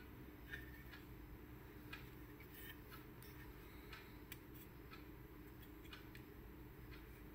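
Near silence with a few faint, scattered clicks and taps from handling the microscope's base plate and its gooseneck LED lamps.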